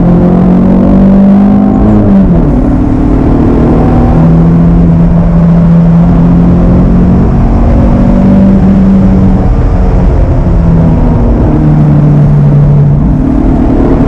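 Honda K-series four-cylinder engine in a K-swapped Toyota MR2 pulling the car along, heard from inside the cabin. The engine note holds fairly steady, drops in pitch about two seconds in, then shifts up and down a few times as the throttle changes.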